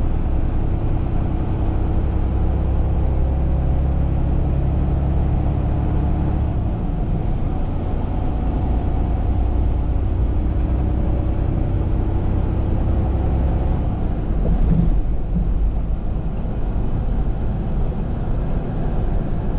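Semi truck's diesel engine and tyre noise droning steadily inside the cab while driving, with a brief louder burst about fifteen seconds in.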